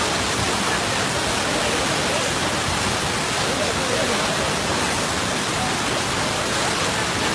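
Floodwater rushing down a swollen muddy torrent in a loud, steady rush, with faint shouting voices under it.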